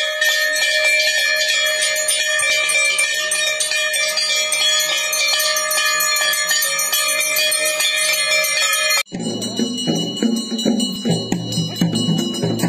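Temple bells rung rapidly and without pause, several bell tones ringing together over dense repeated strikes. About nine seconds in, the sound cuts abruptly to music with a low rhythmic beat.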